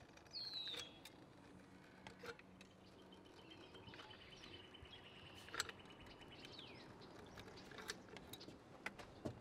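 Near silence: a few faint clicks from a manual caulking gun's trigger as a bead of sealant is run along a window opening, with faint bird chirps and a trill in the background.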